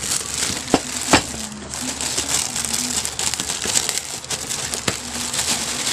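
Thin plastic bag packaging crinkling as it is cut open with scissors and pulled off by hand, with a couple of sharp clicks about a second in.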